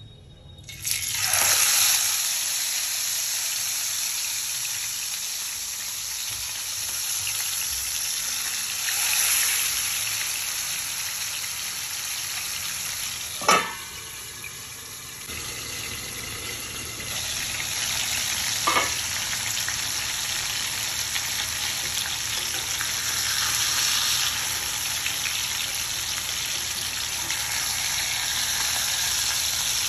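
Marinated whole fish sizzling and spitting in hot oil in a frying pan, the sizzle starting suddenly as the fish goes into the oil. About halfway there is a sharp clank as the steel lid goes on, the sizzle briefly muffled after it, and a smaller clank a few seconds later.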